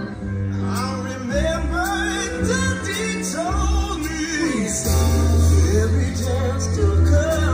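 Fireworks-show soundtrack music: a singing voice over a full instrumental backing with a strong, steady bass, growing louder about five seconds in.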